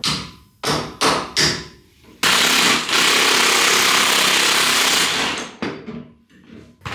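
Milwaukee impact wrench hammering on a pitman arm nut: four short bursts, then one steady run of about three seconds that trails off.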